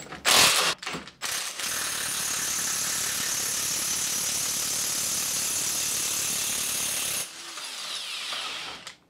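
Milwaukee HD18 HIW 18-volt cordless impact wrench running in reverse, hammering off a thread-locked M20 nylock nut. It gives two short bursts, then about six seconds of continuous hammering, then runs quieter for a second or two before stopping near the end. The nut breaks free of the thread-locking compound with no trouble.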